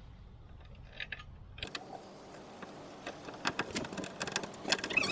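Small metal parts and tools being handled: a few faint clicks, then a run of light clicks and jingling rattles that grows busier over the last couple of seconds.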